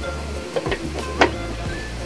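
Background music with a steady bass line, and twice, about half a second apart, a sharp knock of a plastic lid being set down on a stacked plastic food-storage rack.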